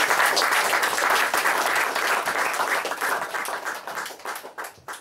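Audience applauding, thinning out toward the end into a few scattered last claps.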